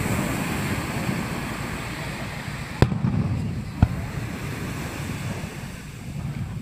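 Fireworks shells bursting over the sea: two sharp bangs about a second apart, about three seconds in, over a steady low rush of surf.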